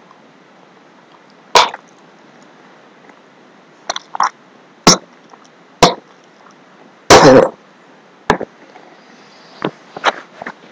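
A person coughing and gagging in about nine short, sudden bursts, the longest a little past halfway, a reaction to a foul-tasting Bean Boozled jelly bean.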